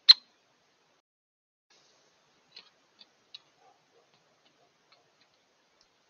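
One loud, sharp click just at the start, then a few faint ticks spread over the next few seconds: a great spotted woodpecker pecking at seed on a plastic dish feeder.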